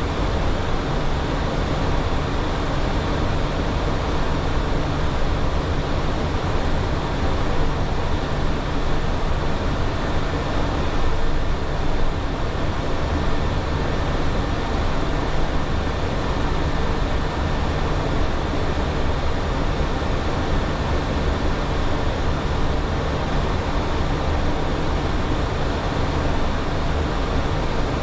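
Steady flight-deck noise of a Boeing 737 under way: an even rushing of air and engine noise over a low hum, holding constant throughout.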